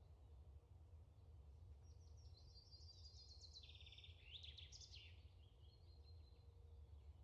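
Near silence: a steady low hum, with faint high chirping trills from about two to five seconds in.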